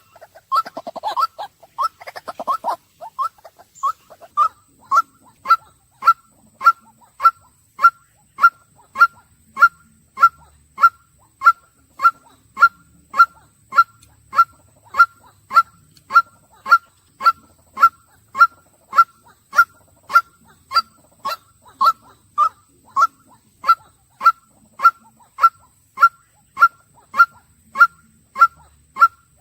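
White-breasted waterhen calling: a few harsh, jumbled croaks in the first seconds, then a long run of single 'kwak' notes repeated evenly, a little under two a second.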